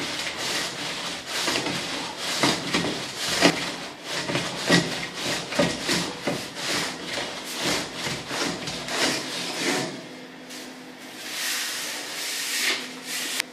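Metal straightedge scraped back and forth over fresh cement render in repeated rasping strokes while a vertical screed strip is levelled. The strokes come one or two a second and ease off after about ten seconds.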